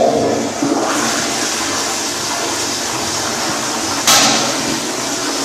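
A commercial toilet with a chrome flushometer valve flushing: a loud rush of water that starts suddenly, with a brief louder surge about four seconds in.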